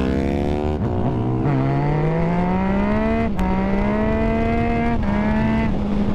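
Yamaha FZ-09's 847 cc inline three-cylinder engine under acceleration, with a 15-tooth front sprocket giving shorter gearing. The revs climb, drop at an upshift about a second and a half in, climb again, hold steady, then fall off as the throttle closes near the end.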